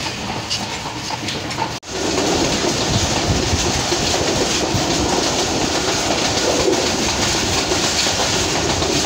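Running noise of a moving passenger train heard from inside the coach: a steady rumble with the clatter of wheels on the rails. There is a brief break about two seconds in, and the noise is louder after it.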